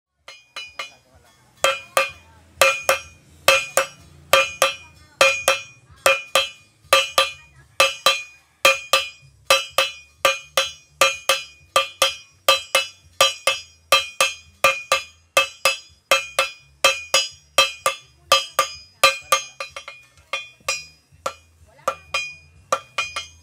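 Hand forging: smith and striker hammering a red-hot machete blank on an anvil, a steady run of ringing metal blows about two a second that thin out near the end.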